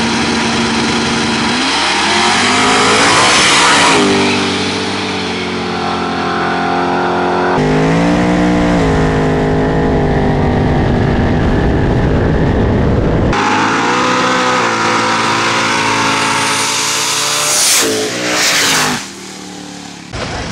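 Two drag-race cars, a turbocharged LSX-engined first-gen Camaro and a ProCharger-supercharged fifth-gen car, launching and accelerating hard, their V8s climbing in pitch through the pass. The sound is heard in three cuts. Near the end come a few sharp cracks before the engines drop away.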